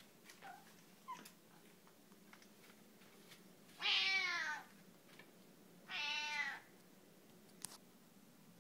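Domestic cat meowing twice, about two seconds apart, each meow falling in pitch; her voice is raspy and not yet back to normal after waking from a nap.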